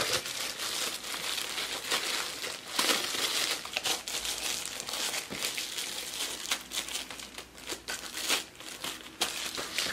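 Thin clear plastic wrapping crinkling and crackling continuously as hands unwrap a small camera lens attachment from it, with many sharp crackles.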